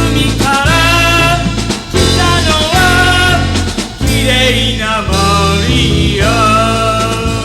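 Rock music with drums and bass under a sung or lead melody line.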